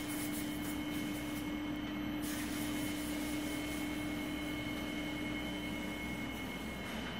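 PVC marble sheet extrusion line running: a steady mechanical drone with a low hum and two faint, high, steady whines.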